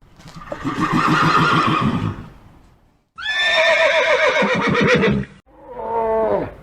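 Horse whinnying: three calls in a row. The middle one starts high and falls in pitch with a quavering tremble, and the last is shorter and also falls.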